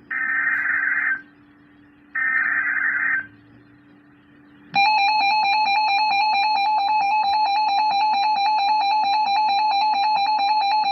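Emergency Alert System digital header: the last two of three roughly one-second bursts of shrill warbling data tones, a second apart. About five seconds in, a loud, steadily pulsing electronic alert tone starts and holds, the attention signal that announces the next warning.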